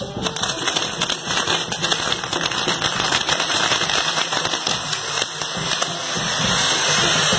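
Castillo fireworks tower going off: dense, rapid crackling of firecrackers and burning pyrotechnics. Near the end it merges into a steadier, louder rush.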